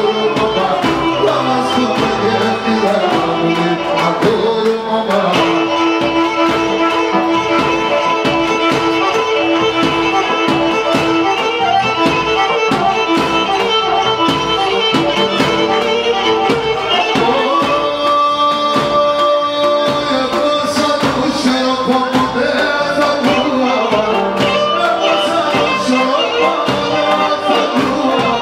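Live Pontic Greek dance music: a Pontic lyra playing a dance tune over keyboard and a steady beat, with a man singing.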